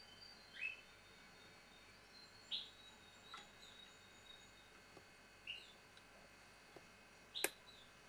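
Small songbirds feeding in a flock give about five short chirps, one every second or two, over faint thin high whistles. The loudest chirp, near the end, comes with a sharp click.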